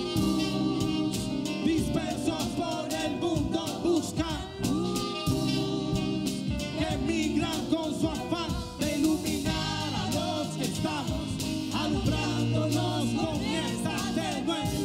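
A live band playing a rap song, with women singing the chorus over the band.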